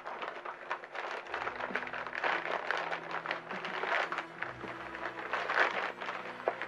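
Thick plastic courier mailer crinkling and tearing as hands pull it open, a dense run of irregular crackles and rustles.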